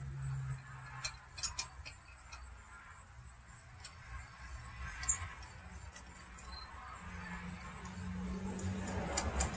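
Faint scattered clicks and light clinks over a low steady hum.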